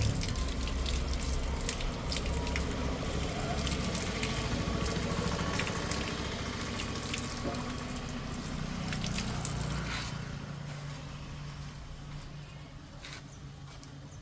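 Water splashing and dripping as soil is rinsed off a banyan's roots, with many small clicks and splashes; it dies down about ten seconds in.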